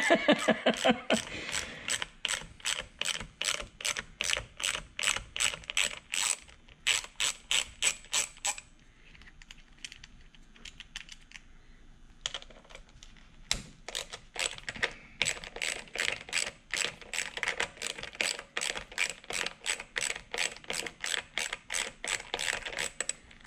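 Small hand ratchet clicking in quick, even strokes, about three or four clicks a second, as it backs out the fasteners holding an airbag module in a steering-wheel housing. The clicking stops for about four seconds midway, then starts again.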